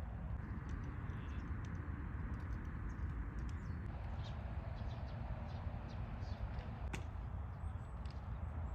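Outdoor ambience: a steady low rumble, like wind on the microphone or distant traffic, with small birds chirping faintly and one sharp click about seven seconds in.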